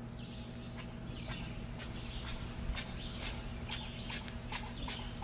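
A cat sneezing over and over in a rapid run of short, sharp, hissy sneezes, about two or three a second, a fit of sneezing taken for allergies.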